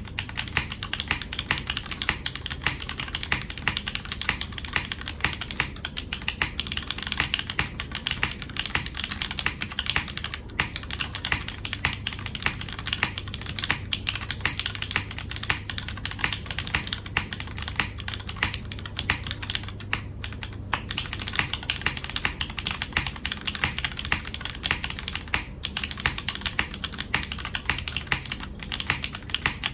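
Continuous fast typing on a custom mechanical keyboard with lubed linear Cherry MX Black switches on an aluminium plate and GMK keycaps, a steady stream of keystrokes with a low thock under each click. It pauses briefly about ten seconds in and again around twenty seconds in.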